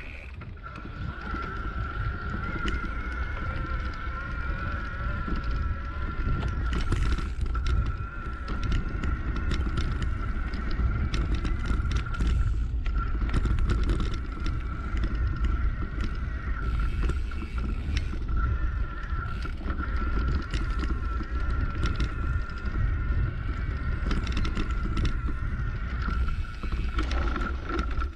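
A bike riding over a rutted dirt track: heavy wind rumble on the microphone with frequent rattles and knocks from the bumps, and a steady high whine throughout that drops out briefly about halfway through and again near the end as the bike slows.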